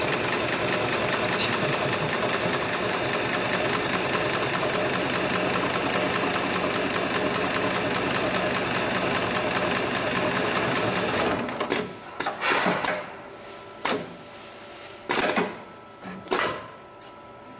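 HIGHTEX 7273PLK automatic programmable pattern sewing machine stitching a heavy military belt at a rapid, steady pace. It stops abruptly about eleven seconds in, followed by a few short, separate bursts of sound.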